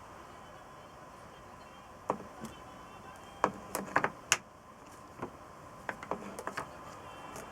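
Irregular sharp clicks and knocks of hand tools and small engine parts being handled, starting about two seconds in, with a quick cluster in the middle and a few scattered ones after.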